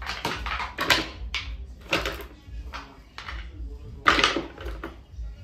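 Frozen breast-milk storage bags being handled and stacked into a plastic drawer: a run of crackling plastic rustles and light knocks, the loudest cluster about four seconds in.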